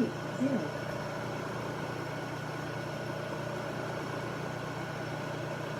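Milling machine running with a steady hum while an aluminum pen clip is machined down a few thousandths at a time.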